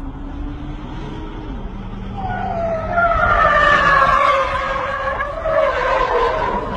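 A car engine running, then from about two seconds in the SUV's tyres squeal loudly and at length, the squeal rising and falling in pitch as it skids past.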